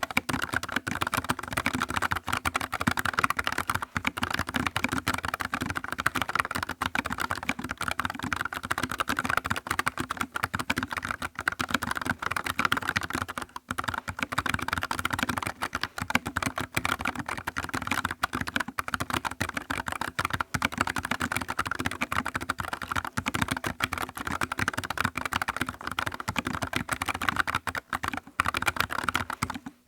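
Continuous fast typing on a NuPhy Air75 low-profile mechanical keyboard with Gateron low-profile brown (tactile) switches: a dense run of keystroke clacks, broken by a brief pause about halfway through.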